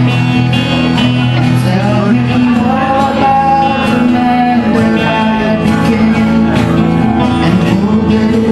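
Live acoustic band playing a worship song: acoustic guitars strumming, a violin and voices singing into microphones.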